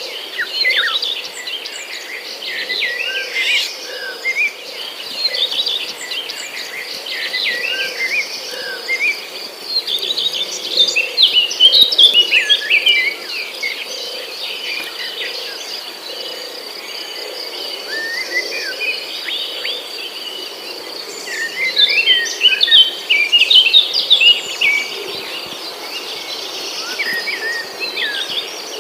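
Several birds chirping and twittering in quick short calls over a steady, high insect trill, with busier flurries of birdsong about ten seconds in and again a little after twenty seconds.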